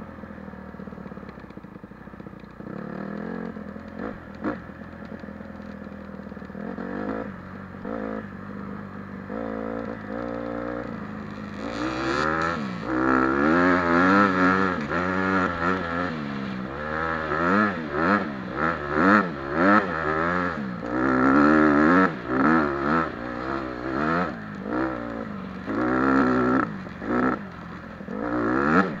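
Dirt bike engine heard close up from the bike being ridden. It runs at low revs at first, then from about twelve seconds in it revs up and down over and over as the bike accelerates and shifts through the gears.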